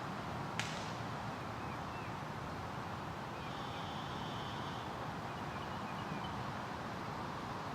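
Steady outdoor background noise with a few faint bird chirps and a brief buzz near the middle. A single sharp click comes about half a second in.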